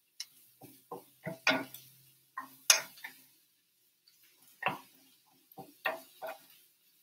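Wooden spatula knocking and scraping against a skillet while diced sweet potato hash is stirred: about a dozen irregular taps.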